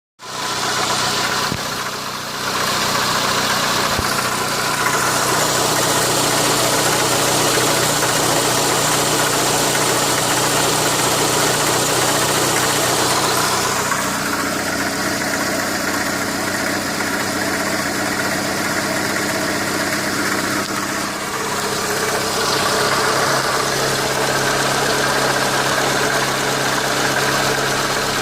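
Renault Mégane II engine running steadily at idle, with the knock that the owner is recording as a fault.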